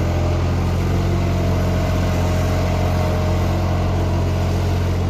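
Tractor engine idling steadily: a low, even drone with no revving.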